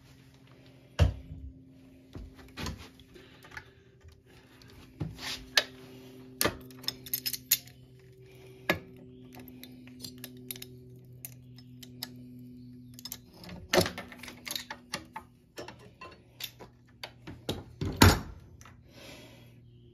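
Locking pliers being worked against a generator's metal frame: scattered metallic clicks and knocks as the jaws are adjusted, then released, with the sharpest snap near the end. A faint steady hum runs underneath.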